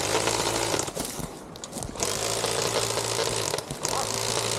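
Electric airsoft gun firing on full auto: three bursts of rapid mechanical rattle over the motor and gearbox hum, with short pauses between them.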